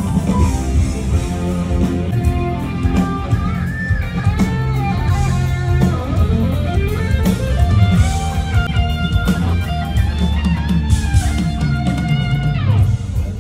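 Live rock band playing through a stage sound system: an electric guitar plays a lead line with bending notes over bass and drums, sliding sharply down in pitch near the end.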